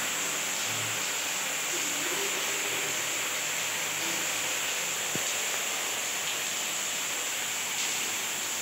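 Wall-mounted shower body jets spraying water in a steady hiss, with a single light tick about five seconds in.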